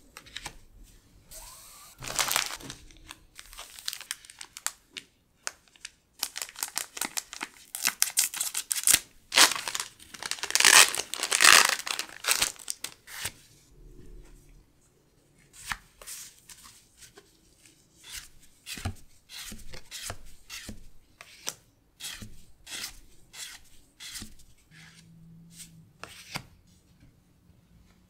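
Foil Pokémon booster pack wrapper crinkling and tearing loudly as it is opened and the cards are pulled out. After that comes a run of short, crisp snaps and swishes as the cards are slid and flipped one by one.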